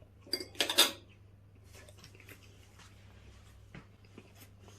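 A person chewing a mouthful of oven-heated shortcrust pastry slice with chicken fajita filling, with a louder noisy mouth sound about half a second in, then quiet, irregular chewing clicks.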